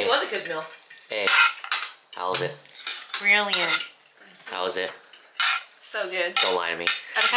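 Cutlery and plates clinking and scraping as food is served at a dinner table.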